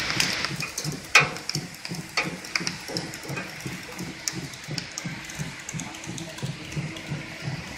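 Savema friction feeder and conveyor belt running, feeding plastic cards: a steady low beat about twice a second with scattered sharp clicks, one louder click about a second in.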